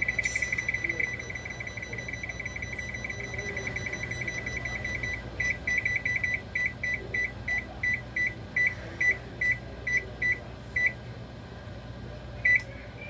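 Whirlpool electric range's control panel beeping as the temperature key is worked: a rapid run of short, high beeps for about five seconds, then separate beeps about two a second until near eleven seconds, and one last beep near the end as Start is pressed. Each beep marks the set oven temperature stepping up toward 500°F.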